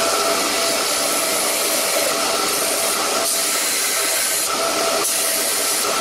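Belt sander running with a steady hiss and faint whine while a small metal buckle is ground against the belt to take its edges down. The high grinding hiss shifts in level every second or so as the buckle is pressed and moved on the belt.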